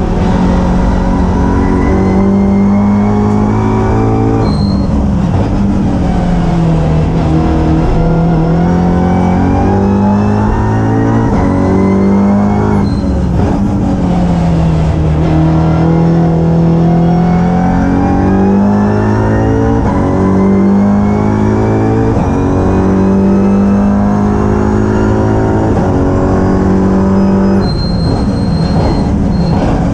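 A WTCR touring car's turbocharged four-cylinder engine at racing speed, heard from inside the cockpit. The engine note climbs repeatedly with quick upshifts between each rise, and falls away for a few seconds at a time as the car slows for corners.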